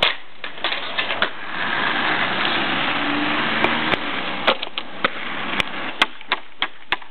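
Steady outdoor background noise with a string of sharp clicks and knocks, a few a second, mostly in the second half.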